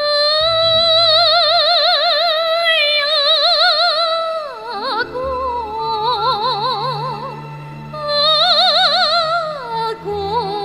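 A woman singing solo in a bright Chinese folk-operatic style, holding long high notes with wide, even vibrato, each phrase sliding down at its end. Soft sustained orchestral strings play underneath; she holds a lower note from about five seconds in, then climbs high again near the end.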